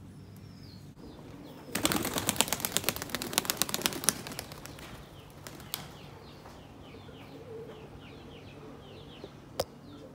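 Pigeon wings flapping hard in a rapid run of wing beats for about two seconds, as a pigeon takes off and climbs. Faint small-bird chirping follows, with a single sharp click near the end.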